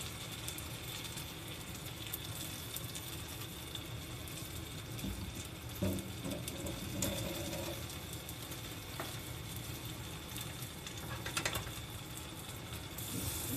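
Oil sizzling steadily in a frying pan around a gyoza-wrapper roll of cheese and avocado, with a few soft knocks partway through.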